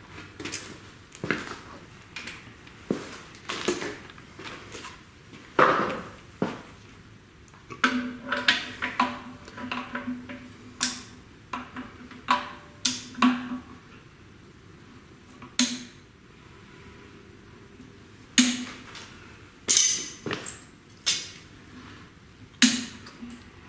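Scattered metallic clicks, taps and clinks as a dial indicator is swung around the bellhousing bore on the engine block and tools are handled on metal, with brief ringing after some knocks.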